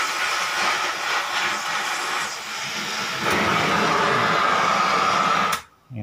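Oxy-fuel cutting torch hissing steadily as it cuts into the steel lock that holds the washing machine's drum bearing. It grows louder about three seconds in and cuts off suddenly near the end as the torch is shut off.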